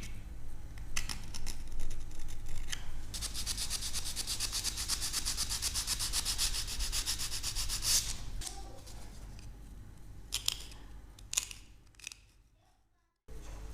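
Plaster being sanded by hand: a few scrapes and taps, then a long run of fast, even rubbing strokes. The strokes stop, followed by a couple of light knocks, and the sound fades out. A steady low hum runs underneath.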